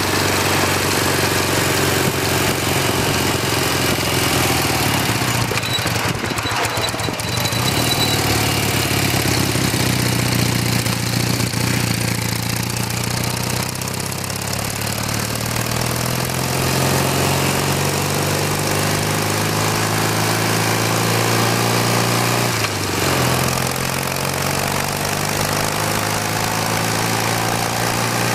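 1981 BMW R65's air-cooled flat-twin engine running under way, with a steady wind hiss over the microphone. The engine note sags and builds back up, and about two-thirds of the way through it dips sharply and then recovers.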